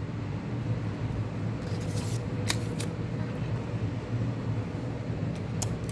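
Steady low hum, with a few brief faint clicks about two seconds in and near the end.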